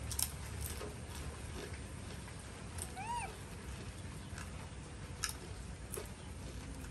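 A baby monkey gives one short, high squeaky call that rises and falls, about three seconds in, amid a few light clicks.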